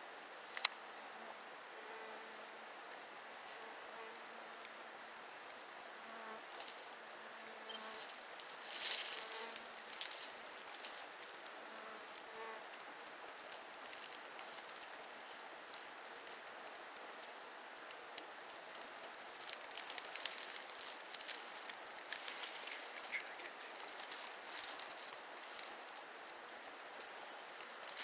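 A flying insect buzzing in short, broken stretches over the first half, with scattered soft crackles and rustles throughout.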